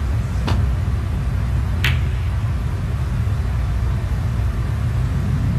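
A steady, loud low rumble with two sharp clicks about 1.3 seconds apart: snooker cue and balls striking as a shot is played.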